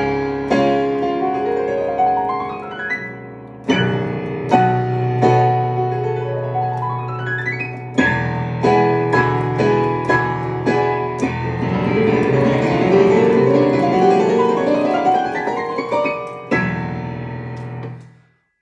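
Solo piano playing Spanish-flavoured harmonies in sweeping rising arpeggios over held bass notes. The sound dies away near the end.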